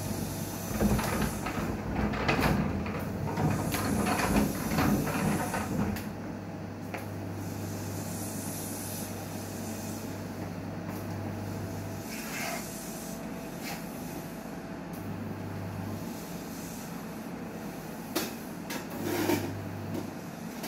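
Newmed Kronos S benchtop steam autoclave running a cycle. A low, steady hum cuts out about twelve seconds in and comes back twice briefly, with a stretch of hissing and rattling in the first few seconds and a few sharp clicks later on.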